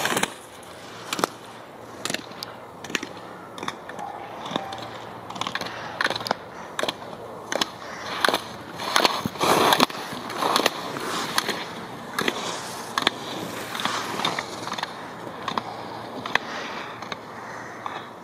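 Slalom skis carving on hard-packed snow, the edges scraping in a quick rhythm of turns, with sharp clacks as the skier knocks the slalom gate poles aside.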